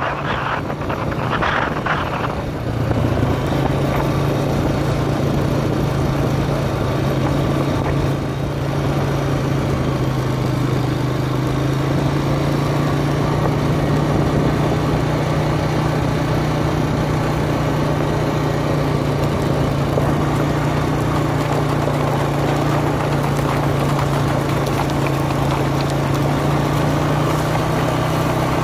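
Steady engine hum of a slow-moving motor vehicle, its pitch stepping up slightly about three seconds in.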